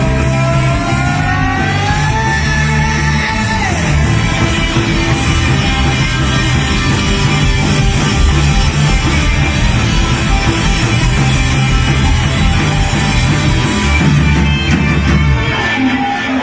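Loud rock band music with guitar; a sliding note rises over the first few seconds, and the heavy low end stops near the end.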